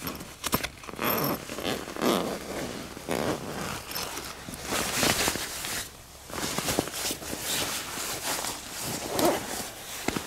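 Sleeping bag zipper being pulled open in several separate strokes.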